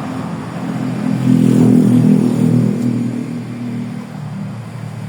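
An engine running, swelling to its loudest about two seconds in and then fading.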